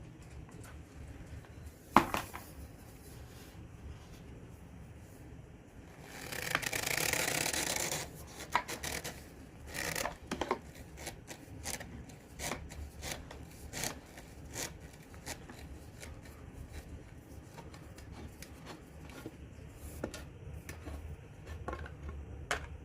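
Handling of a push broom's plastic parts and handle: scattered clicks, knocks and rubbing, with one sharp click about two seconds in and a louder scraping rush from about six to eight seconds in.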